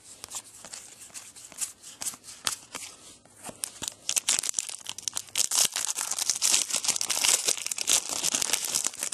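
Foil trading-card pack being torn open and its wrapper crinkled: a run of sharp crackles, sparse at first and busier and louder from about four seconds in.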